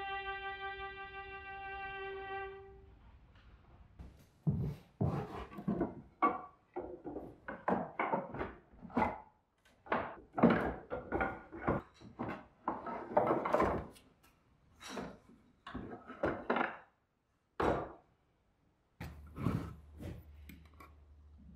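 A held violin note fades out in the first couple of seconds. Then pieces of wood knock and clatter together in quick, irregular bursts as a pile of wooden offcuts is rummaged through.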